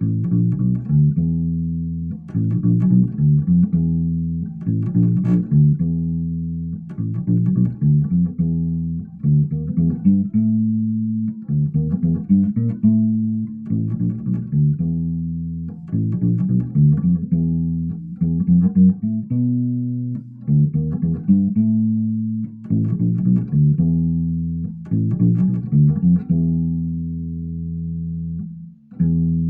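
Harley Benton PB-50 electric bass played clean, with no effects, through a Fender Rumble 15 W bass amp: a slow melodic line of plucked notes, some held and left to ring. The line pauses briefly near the end.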